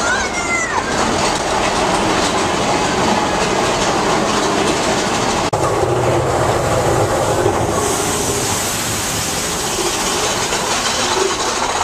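Mine-train roller coaster running along its track, a steady loud rattle and clatter of the cars' wheels.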